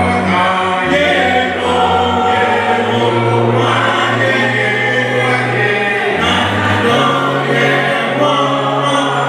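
Choir singing a hymn in long held chords over a steady low bass note, changing chord every second or two.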